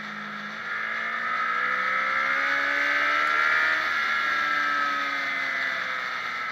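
Motorcycle engine heard from on board the bike, rising in pitch and loudness from about a second in as it accelerates, then easing off slightly in the second half.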